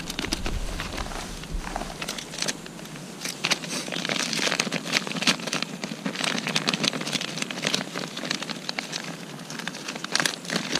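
Plastic bait packet being cut open with scissors and pulled apart by hand, the plastic crinkling with many short, irregular crackles, busiest in the middle and again near the end.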